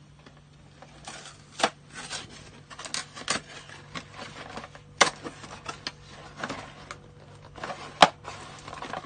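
A cardboard box of Dolce Gusto coffee capsules being opened by hand: irregular scraping and rubbing of the flaps, with a sharp snap about halfway and a louder one near the end.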